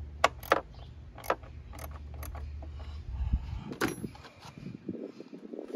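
Hand tools working on a car battery's hardware: a run of sharp, irregular metallic clicks and knocks over a low steady hum that stops about three seconds in.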